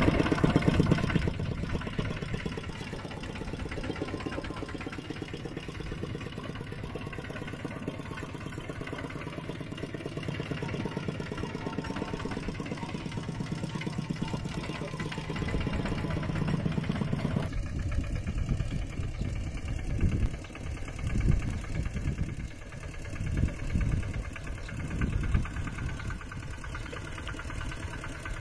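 Mini tractor engines running with a rapid, even beat. About two-thirds of the way in the sound changes suddenly, and the engine noise then rises and falls in several surges.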